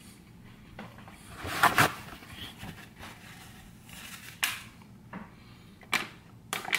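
Paper napkin rustling as it is wiped across the mouth, and a thin plastic water bottle crinkling as it is held up to drink. A few short crackling rustles, the loudest about two seconds in.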